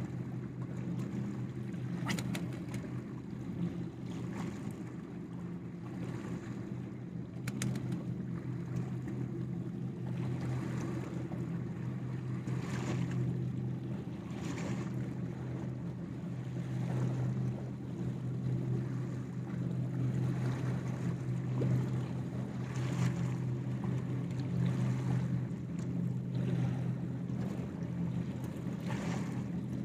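A motor's steady low drone runs throughout, under soft swells of sea water washing against shore rocks every couple of seconds.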